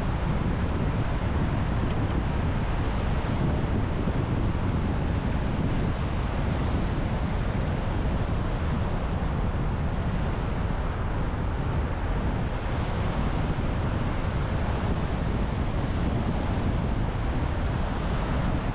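Steady noise of a car driving: a continuous low rumble of road and engine, with wind, unchanging throughout.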